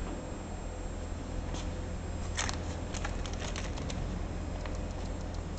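Scattered sharp clicks and light ticks from hands working the back pulling-wheel handle and fittings of a liquid packing machine, over a steady low hum. The loudest cluster of clicks comes about halfway through, followed by a quick run of lighter ticks.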